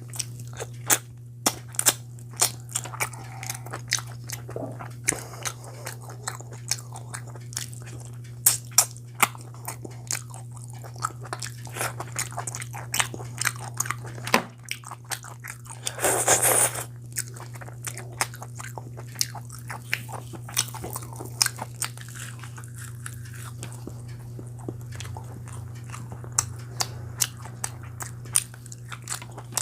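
A person chewing and biting food close to the microphone: a chicken curry and puri meal, with many sharp, irregular crunchy clicks. A steady low hum runs underneath, and a louder rushing burst comes briefly about sixteen seconds in.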